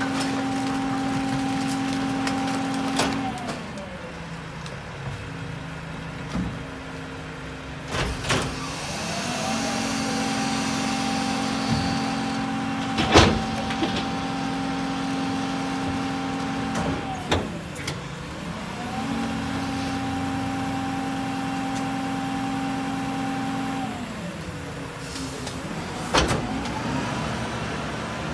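Heil split-body rear-loader garbage truck running its packing cycle: the engine is held at raised revs to drive the packer hydraulics, with a steady hum, then drops back to idle and climbs again, three times over. Sharp metal clanks cut in several times, the loudest about halfway through.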